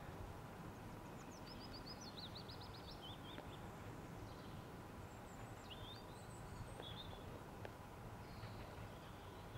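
Small birds chirping and trilling in two short spells over a faint, steady low rumble from a distant English Electric Class 50 diesel locomotive approaching with its train.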